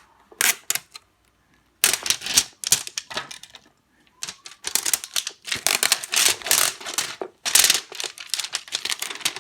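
Crinkly plastic toy packaging being torn and crinkled open by hand: quick clusters of sharp crackling clicks, with a short pause about a second in.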